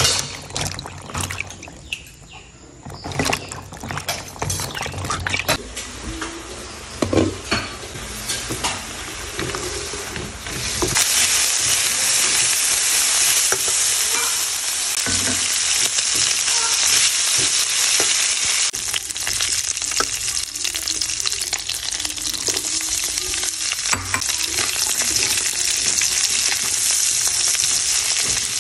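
Scattered clicks and knocks for the first third or so, then cubed pork frying in its own rendered fat in a wok: a loud, steady sizzle, with the spatula scraping as the meat is stirred.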